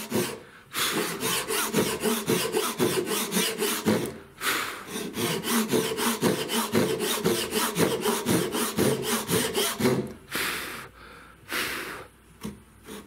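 Japanese pull saw cutting across celery top pine in quick, rhythmic strokes. There is a short break about four seconds in, and near the end the sawing pauses and gives way to a few shorter strokes.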